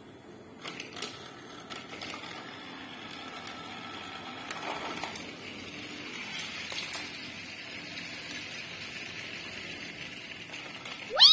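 A few plastic clicks as toy wagons are set on the track, then a battery-powered toy train running steadily around a plastic track, its small motor and wheels making a faint rattling hum. A loud falling tone cuts in at the very end.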